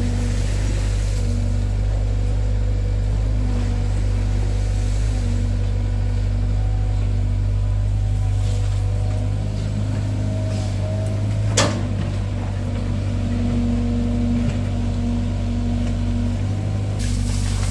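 Excavator's diesel engine running steadily, with one sharp knock a little past halfway through.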